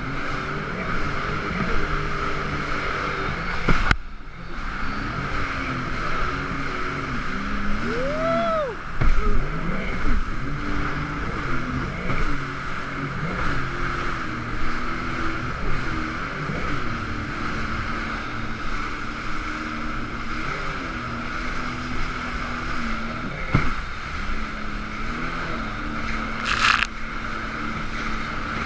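Jet ski engine running with its revs rising and falling, over rushing water and wind on the camera's microphone.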